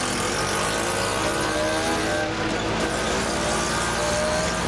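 Auto-rickshaw engine running through a hole-riddled exhaust: a steady, loud growl whose pitch rises and falls a little as it drives.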